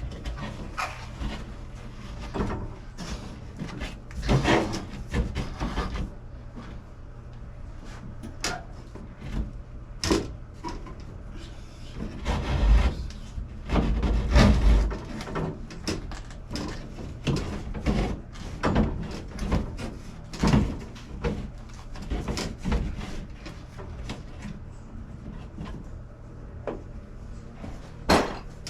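Irregular knocks, clatters and scrapes of hands-on work, with heavier thumps about halfway through, over a steady low hum.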